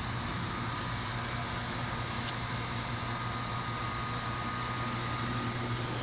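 Outdoor air-conditioner condenser unit running: a steady low hum with an even rush of fan noise and a thin steady whine above it.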